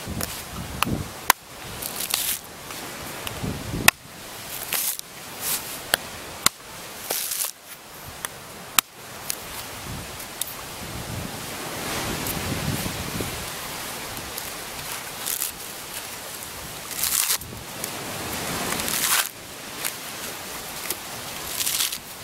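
Machete blade chopping into a coconut's fibrous husk in a series of sharp knocks, then the husk being torn apart by hand in rasping, ripping pulls of fibre.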